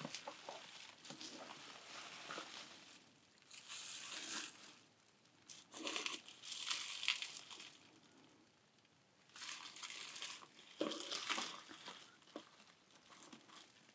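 Bubble-wrap and plastic packaging crinkling as hands unwrap a box, in several separate bouts of rustling with quiet pauses between.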